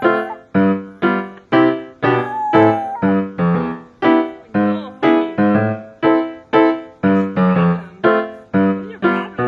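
Background piano music: struck keyboard notes repeating about twice a second, each fading before the next.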